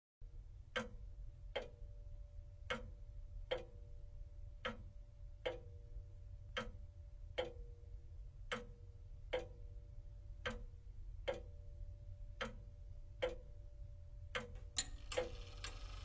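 Pendulum clock ticking, about one tick a second in an uneven tick-tock beat, each tick ringing briefly, over a steady low hum. Near the end a few extra clicks come in between the ticks.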